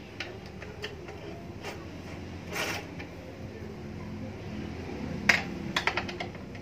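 Metal clicks and clinks of a hand tool on the exhaust mounting of a scooter: scattered single clicks, a brief rasp about two and a half seconds in, then a sharp clink a little after five seconds followed by a quick run of clicks.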